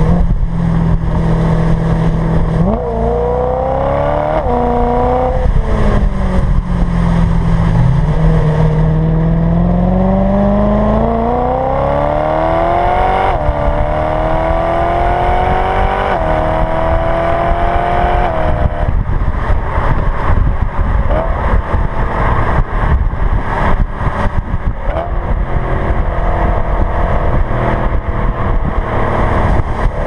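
2013 BMW M3 E92's 4.0-litre naturally aspirated V8 through its stock exhaust, heard at the twin tailpipes, accelerating through the gears of the 7-speed DKG double-clutch gearbox: the note climbs in pitch, drops sharply at each quick upshift, and climbs again, about five times. In the second half it settles to a lower, steadier note under road and wind noise.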